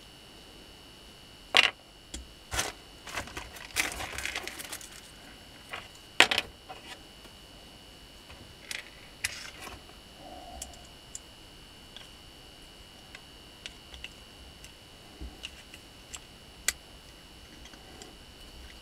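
Carbon-brush holders being handled and fitted onto a washing-machine motor's housing: a few sharp clicks of small parts against metal, with a short jangling rattle about four seconds in, then sparser light ticks.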